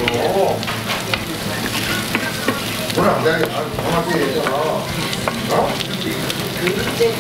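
Strips of pork belly, with garlic cloves and kimchi alongside, sizzling steadily on a hot griddle plate at a Korean barbecue.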